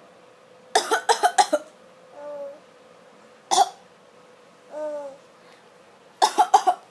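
A person coughing: a quick fit of several coughs about a second in, a single cough in the middle, and another fit near the end. Between the coughs a baby answers twice with a short giggle.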